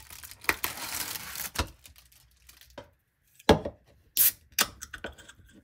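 Rustling and crinkling of food packaging as a clear plastic fruit container and a paper-wrapped sandwich are handled, then a few sharp clicks and snaps in the second half, the loudest about halfway through.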